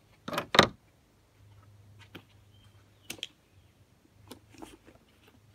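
Plastic strap buckle clicking and nylon webbing being handled and pulled as a belly strap is fastened around a spare-tire storage bag. Two sharp clicks near the start are the loudest, followed by a few lighter clicks and rustles.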